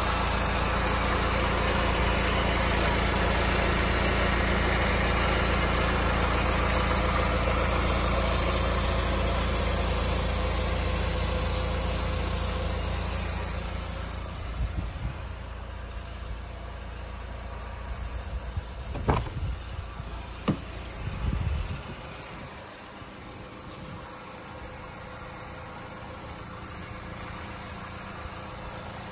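Honda CR-V 2.2 i-CTDi four-cylinder turbodiesel idling steadily, louder at first and quieter after about the middle. Around two-thirds of the way through come a few sharp clicks as a rear door is opened.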